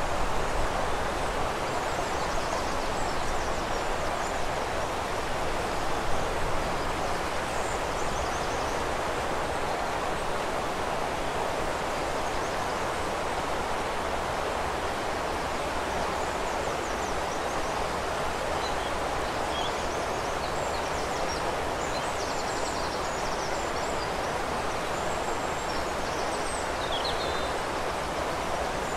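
River water flowing in a steady rush, with faint bird chirps and short calls dotted over it, more often in the second half.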